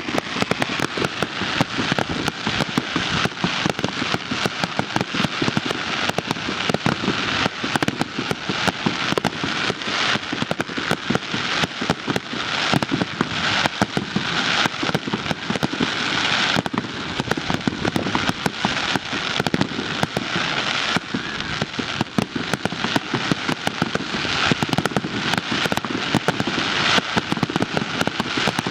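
Fireworks crackling: a dense, continuous run of rapid small pops and snaps at an even level, with no single big bang standing out.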